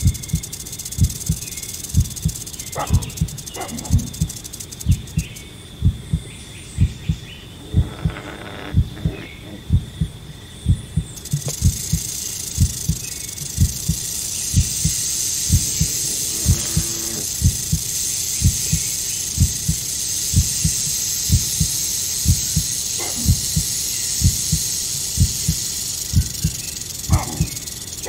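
A recorded heartbeat: a steady, even run of low thumps that carries on throughout. Behind it a steady high hiss grows louder about a third of the way in.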